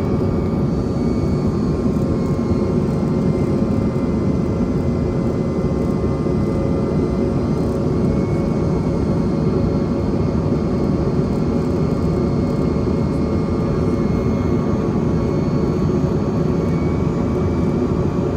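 Steady in-cabin noise of a Bombardier CRJ-200 regional jet in flight: the hum of its rear-mounted turbofan engines and the rush of air, with a few steady whining tones over it.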